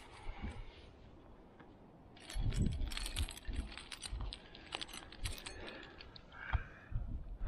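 Trad climbing gear, camming devices and carabiners on a harness gear loop, jangling and clinking as a cam is taken off the rack, in a quick run of metallic clicks starting a couple of seconds in, with a few dull knocks of handling.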